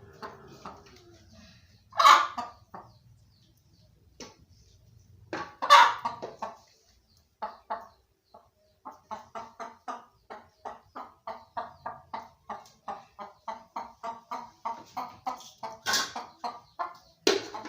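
Domestic chickens clucking: two loud calls in the first few seconds, then a long, even run of clucks, about three a second.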